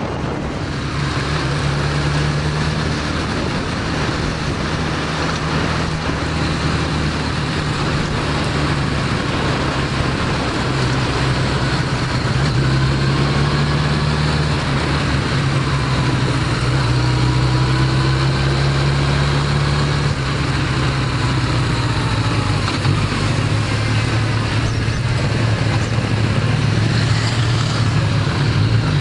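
Honda CB1100EX's air-cooled inline-four running at low, steady revs at slow riding speed, heard from the bike itself with wind and road noise. The engine note drops to a lower pitch about eleven seconds in and again around twenty seconds.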